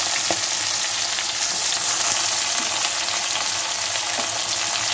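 Sliced onions sizzling in hot oil in a kadhai along with bay leaf and green chillies: a steady frying hiss with a few faint pops.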